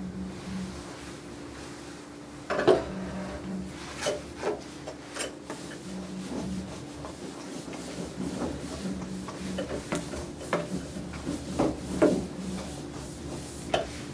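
Rubbing and scattered light knocks and clicks as a small dog is handled and brushed on a grooming table, over a steady low hum.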